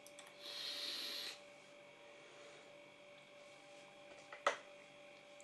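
A breathy hiss of about a second from a puff drawn on an e-cigarette, over a faint steady hum. A single sharp click comes near the end.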